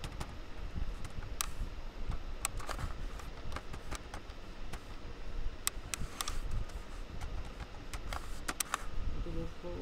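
Computer keyboard typing: keys are struck in irregular clicks, some single and some in quick runs, as an email address is entered into a login field.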